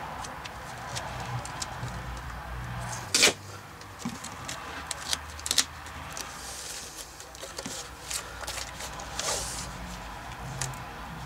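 Handling noise of duct tape and a corrugated plastic vacuum-cleaner hose as tape strips are peeled and pressed around the hose's joint with a hair dryer. It is a run of rustling and crinkling with scattered clicks and knocks. The sharpest knock comes about three seconds in, and two longer hissy rustles come later, likely the tape being pulled and smoothed.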